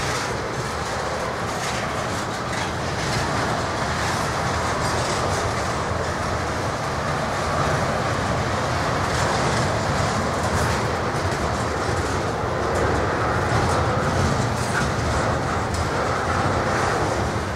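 Double-stack intermodal freight train's well cars rolling past at speed: a steady rumble of steel wheels on rail, with scattered wheel clicks.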